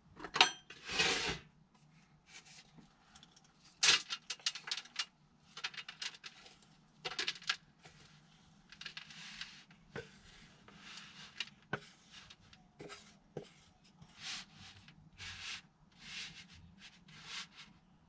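Wooden spoon scraping oat granola mix out of a stainless steel mixing bowl and spreading it across a metal baking sheet, in a run of short scrapes with the odd knock of spoon on metal. A louder metal clatter in the first second as the baking sheet is handled on the counter.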